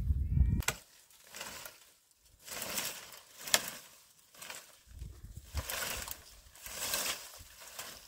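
Dry dead branches rustling, scraping and snapping as they are pulled and broken off a tree by hand for firewood, in separate bursts about a second apart, with one sharp crack about three and a half seconds in. A short low rumble comes first.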